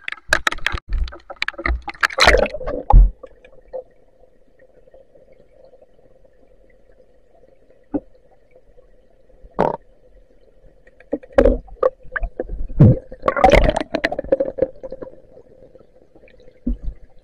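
Water splashing and sloshing as the camera goes under the river surface, then a muffled underwater hum broken by scattered knocks and a louder burst of bubbling and splashing about two-thirds of the way through.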